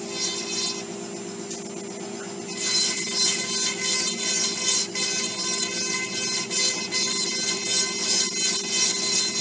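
Dental straight handpiece with a bur running with a steady whine while grinding an extracted wisdom tooth. From about two and a half seconds in, a louder, uneven grinding hiss comes in as the bur cuts into the tooth to clean it for dentin graft material.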